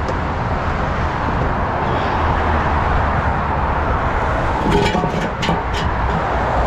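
Steady heavy-vehicle engine and road traffic noise with a deep rumble, with a brief clatter of sharp knocks about five seconds in.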